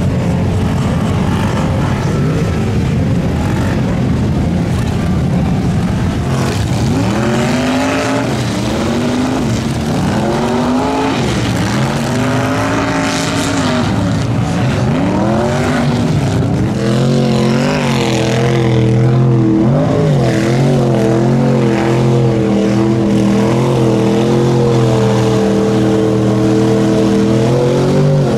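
Lifted 4x4 mud truck engine revved hard in repeated rising and falling surges, then held at high revs in the last third as the truck is driven flat out through a mud pit.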